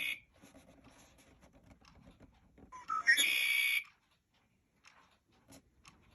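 A recorded red-winged blackbird song played by a Mark Feldstein & Associates National Audubon Society 100th-anniversary singing bird clock as its nine o'clock song. It is one 'conk-la-ree' phrase about three seconds in, a few short rising notes leading into a buzzy trill that lasts about a second. The end of an earlier phrase sounds at the very start.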